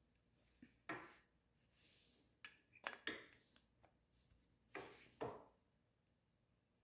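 Faint, scattered metal clicks and short scrapes of a hand tool working on a brake caliper as a tight caliper piston is squeezed back into its bore, otherwise near silence.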